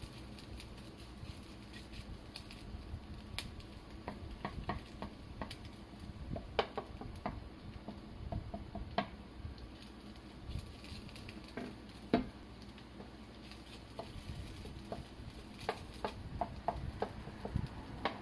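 Wooden spatula stirring diced food in a nonstick frying pan: irregular clicks and scrapes against the pan over a low sizzle.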